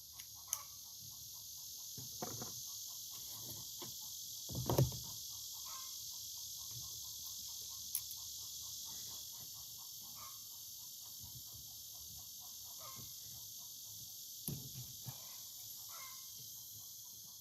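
Chickens clucking and calling, with scattered knocks and clinks of hand tools on the ATV; the loudest is a dull thump about five seconds in. A steady high hiss runs underneath.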